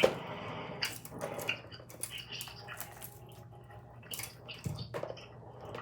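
Hair tools and small items being handled while styling hair: a series of irregular light clicks and clacks, several in the first two seconds and a few more near the end.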